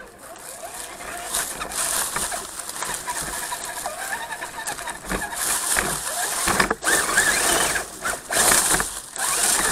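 Redcat Gen7 RC crawler's electric motor and drivetrain whining, the pitch wavering up and down with the throttle over a steady hiss, cutting out briefly a few times near the end.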